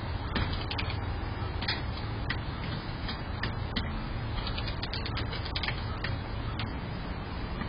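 Chickens pecking at feed around a metal feeder: irregular sharp taps and clicks, a few a second, over a steady background hiss.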